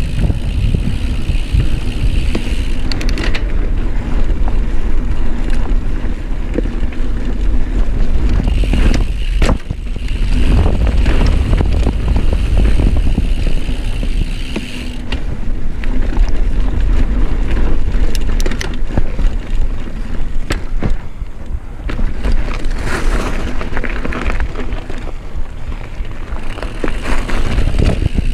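Mountain bike riding fast down dirt singletrack, picked up by a chest-mounted camera: a steady rumble of wind on the microphone with tyres rolling over dirt. Frequent rattles and clacks from the bike come over bumps, and a higher whir comes and goes.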